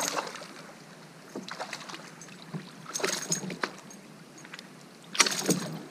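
A hooked bass splashing at the surface beside a kayak as it is reeled in and lifted. There are four short bursts, the last and loudest about five seconds in.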